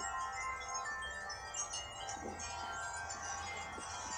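Wind chimes from two windy-day wind chime videos playing back at the same time, many metal tones ringing and overlapping steadily.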